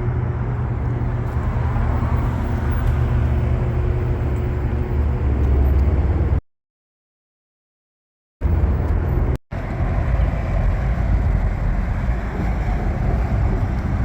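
Road traffic noise with a heavy low rumble. It cuts to dead silence for about two seconds around the middle, then returns, with a brief dropout a second later.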